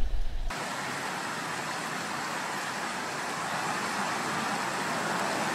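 Steady rushing of a shallow, rocky river's flowing water, an even hiss without pitch. A low rumble comes before it, cut off about half a second in.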